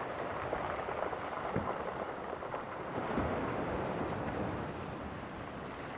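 Steady wind and sea wash at a rocky shoreline: an even rushing noise that swells slightly a couple of times.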